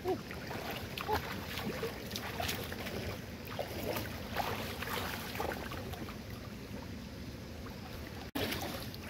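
Shallow stream water sloshing and splashing softly in short bursts as hands grope through the muddy bottom and legs shift in the water, over steady wind noise on the microphone. The splashes come thickest in the first half and thin out later.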